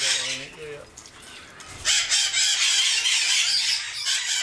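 A flock of juvenile Congo African grey parrots squawking and chattering together in a harsh, dense chorus. It drops back about half a second in and picks up again just before two seconds.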